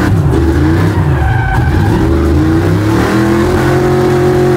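Small-block Chevy V8 of a square-body C10 drift truck revving hard while the rear tires skid and squeal in a drift. The engine pitch rises and falls, then holds high near the end.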